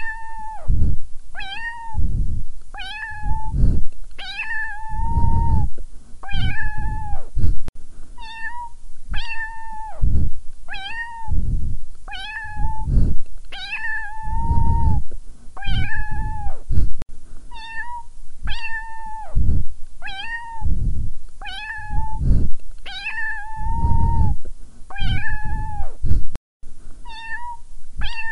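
A cat meowing over and over, about once a second, each call short with an even pitch and a few drawn out longer; the calls are nearly identical, like one meow repeated.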